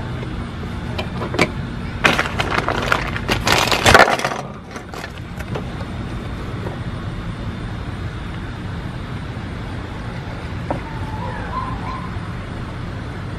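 Orange plastic Hot Wheels track pieces and their packaging being handled: a burst of clattering and crackling clicks for a few seconds, then only a steady background hum.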